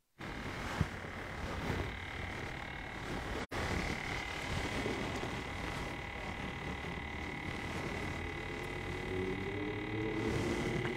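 Small electric motor of a battery-powered cat toy running steadily, swinging its wand-mounted toy mouse around, with a faint rasping whir.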